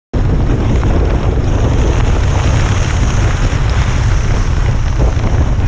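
Strong, gusty wind buffeting the camera microphone: a loud, heavy low rumble with hiss over it. It cuts in suddenly at the start.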